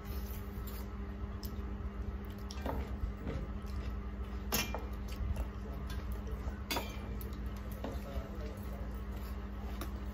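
Eating with the hands from steel plates: fingers mixing and squishing rice and curry, with a few sharp clinks of a steel bowl and spoon against the plates, the loudest about halfway through. A steady low hum runs underneath.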